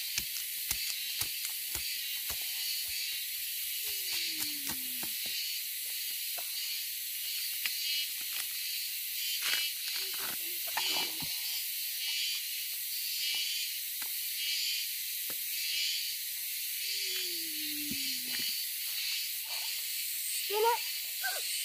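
Steady, high-pitched outdoor hiss with scattered sharp snaps and rustles, most frequent in the first few seconds. Twice a slow, low call falls in pitch, and a brief voice-like sound comes near the end.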